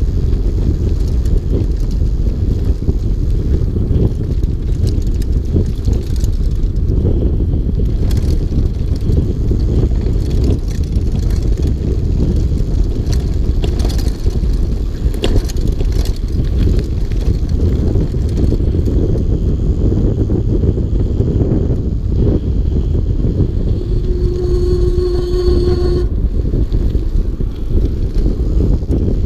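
Mountain bike riding down a dirt fire road: a steady low rumble of wind buffeting the microphone and tyres rolling on the trail, with scattered clicks and rattles from the bike. About three-quarters of the way through, a steady pitched tone holds for about two seconds.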